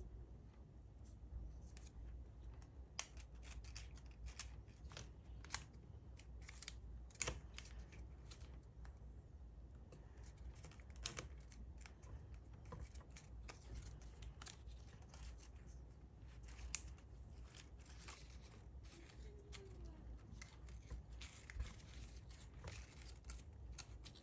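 A sheet of origami paper being folded and creased by hand: faint, irregular crinkles and sharp little clicks of stiff paper, scattered throughout.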